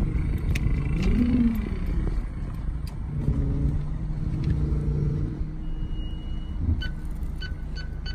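Car cabin: engine and road rumble as the car rolls slowly and slows down. A regular ticking, about three a second, joins near the end.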